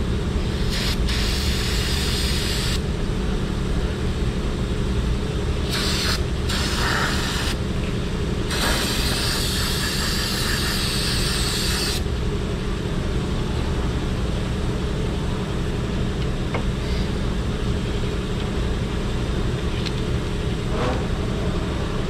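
Aerosol can of brake cleaner hissing in a series of sprays into a throttle body to clean out its dirty bore. The last and longest spray ends about twelve seconds in. A steady low hum runs underneath throughout.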